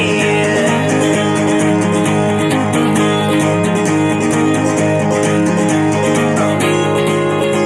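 Background music: an instrumental stretch of a folk song with acoustic guitar strumming and no singing.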